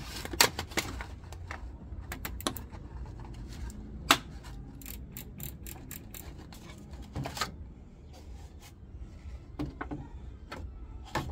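Irregular clicks and knocks of hard plastic parts and small screws being handled while a washing machine control panel and its knob are refitted, with the sharpest knocks about half a second and four seconds in and a quick run of small clicks a little later.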